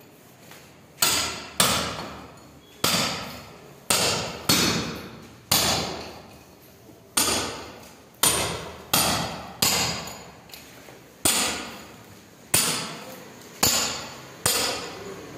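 Hammer strikes, about fifteen of them at an uneven pace of roughly one a second, starting about a second in. Each blow rings on briefly in a bare, echoing room.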